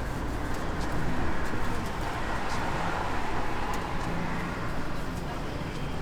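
Steady city street traffic noise, a low rumble of passing vehicles, with a few faint clicks.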